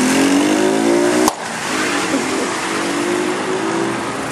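Small motorcycle engine speeding up as it pulls away, its pitch rising; a sharp click a little over a second in, after which the engine sound goes on fainter.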